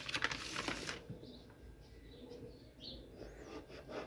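Plastic meat packaging crinkling for about the first second as strips of charque are pulled out of the packet, then cutting off. After it, quieter handling with a few faint bird chirps.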